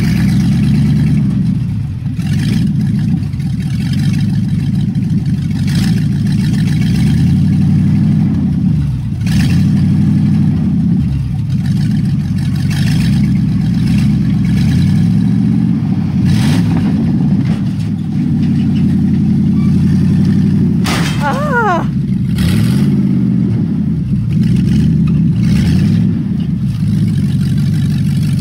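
1951 Dodge Coronet rat rod's engine running loud and being revved up and down again and again as the car comes off a trailer. About two-thirds of the way through there is a short high squeal that slides up and down in pitch.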